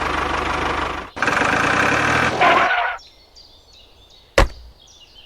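A truck engine running with a hissy noise, breaking off briefly about a second in and stopping about three seconds in; a single sharp click follows near the end.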